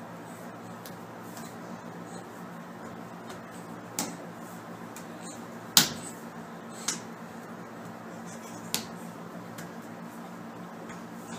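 Babies' hands slapping on a tiled floor as they crawl: four short, sharp smacks about four, six, seven and nine seconds in, the one about six seconds in the loudest, over a steady low room hum.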